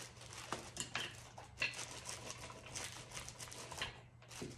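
Fingertips rubbing and patting glued decoupage paper down onto a wooden charcuterie board: a quick, faint run of scratchy rubs and light taps. A steady low hum lies underneath.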